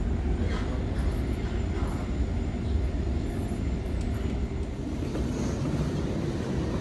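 Steady low rumble of a Sydney Trains electric suburban train, heard from inside the carriage while it runs, with a few faint clicks over it.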